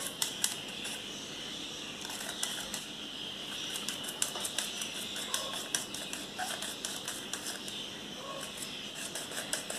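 Thai eggplants (makhuea pro) being sliced on a handheld mandoline slicer: repeated short scraping strokes with light clicks, coming in irregular clusters.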